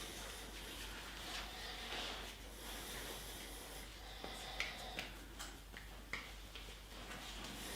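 Hands rubbing and kneading skin and hair during a head massage, a soft rustling, with a few sharp clicks in the second half.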